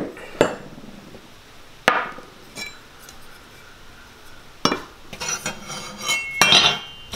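Metal motorcycle fairing brackets clinking and knocking against each other and the workbench as they are handled, set down and picked up: a few separate knocks, then a quicker run of clinks with a short metallic ring near the end.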